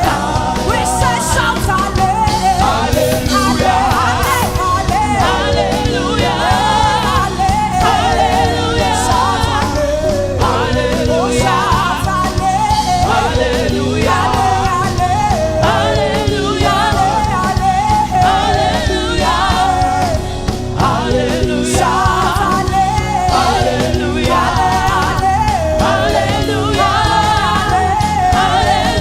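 Gospel worship music: voices singing a melody over a steady band accompaniment.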